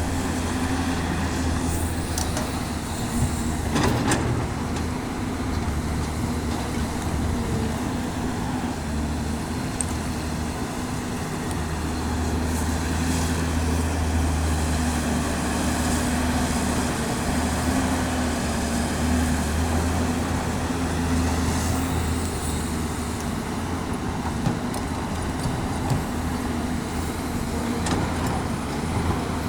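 Caterpillar 329D L hydraulic excavator's diesel engine running steadily under load while digging and loading soil, with a sharp knock about four seconds in.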